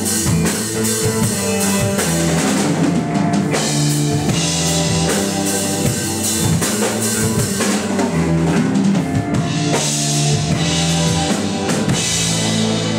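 Live rock band playing an instrumental passage: a busy drum kit with cymbals and snare under electric guitars and keyboards. Near the end the drumming stops and held chords ring on.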